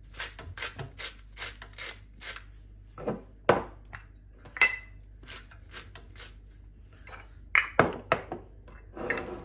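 Hand-twisted spice grinder cranking in rapid ticks, a few a second, over a pot of soup. This is followed by separate sharp knocks and clinks as the grinder and its cap are set down on a stone counter, one with a short metallic ring.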